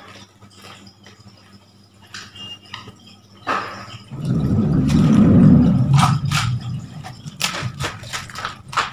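Water-filled plastic fish bags being handled and shifted: rustling and crinkling plastic with scattered clicks. A louder stretch of rubbing and handling noise comes about four to six seconds in.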